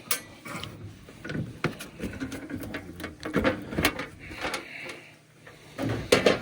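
Irregular knocks, clicks and clatter of things being handled, loudest in a cluster near the end.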